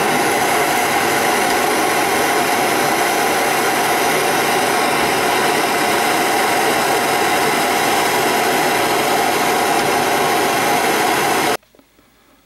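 Steady hiss of a soldering torch flame held on a copper-to-aluminum refrigerant-line joint while flux-cored aluminum solder is fed in. It cuts off abruptly near the end.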